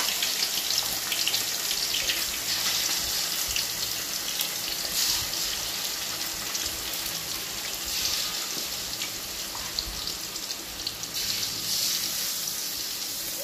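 Turmeric-coated chicken pieces par-frying in hot oil in a steel wok: a steady sizzling hiss with small crackles as more pieces go into the oil.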